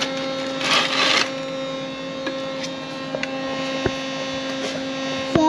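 A refrigerant recovery machine running steadily with an even hum, on recover mode pulling the AC system down. A short hiss breaks in about a second in, and there are a few light clicks.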